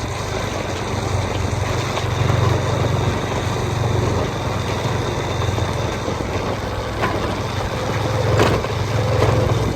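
A two-wheeler's small engine runs steadily at low speed as it is ridden, its low hum swelling and easing a little, under a steady hiss of heavy rain and wind. There are a couple of faint knocks near the end.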